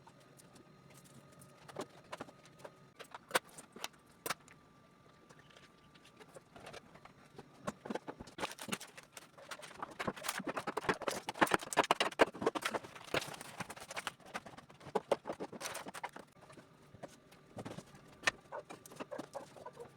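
Containers and food items being handled and set down on refrigerator shelves: a run of clicks, knocks and rattles, sparse at first and busiest in the middle.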